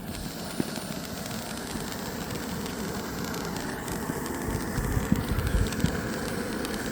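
Ground fountain firework spraying with a steady hiss, with a few sharp pops and low rumbles of wind on the microphone near the end.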